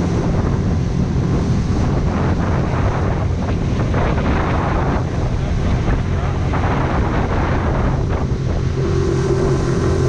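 Motor of a small aluminum boat running steadily under way, with wind buffeting the microphone and water rushing along the hull, strongest in the middle seconds. A higher steady tone from the motor joins near the end.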